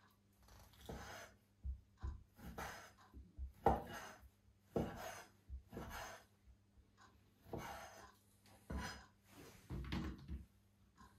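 Kitchen handling noises during food preparation: irregular rustles, scrapes and light knocks, roughly one a second.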